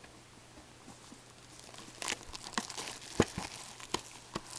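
Crinkling and rustling of foil card packs and box packaging handled by gloved hands, starting about two seconds in, with a sharp tap a little after three seconds in.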